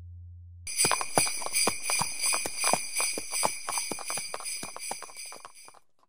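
A low steady hum gives way, under a second in, to jingle bells shaking rapidly. Many quick metallic jingles ring over each other and fade out near the end.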